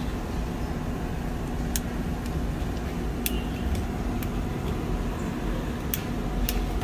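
Several sharp clicks as the rotary light-colour knob on a capsule pod's wall panel is turned, over a steady low hum.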